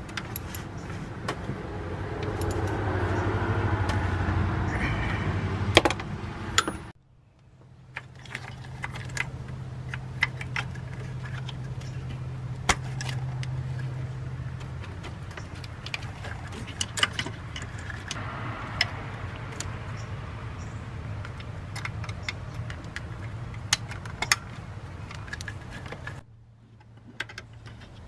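Metal hand tools clinking and clicking as a socket wrench turns the mounting bolts of a replacement alternator. The clicks come in short, irregular runs.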